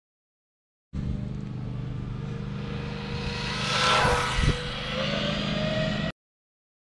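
Traxxas Rustler 4x4 VXL RC truck's brushless motor and drivetrain whining as it speeds past. It swells to its loudest about three seconds in, with the pitch dropping as it goes by, and a short knock follows. The sound starts and cuts off abruptly.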